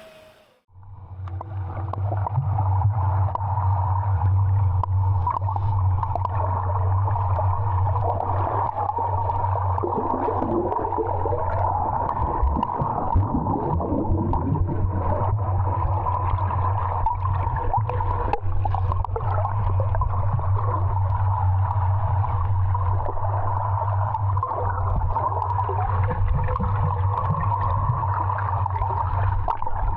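Muffled sound heard underwater: a steady low hum with gurgling and scattered crackling clicks, after a sudden dip as the sound goes under about half a second in.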